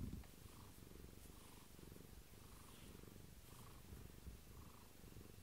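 Tabby cat purring softly and steadily, a low rumble close to the microphone.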